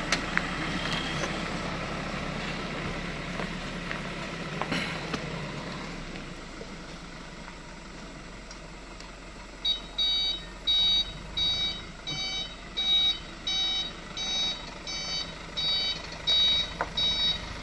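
Dump truck's engine running, then from about ten seconds in its reversing alarm beeping steadily, about one and a half beeps a second, as the truck backs up.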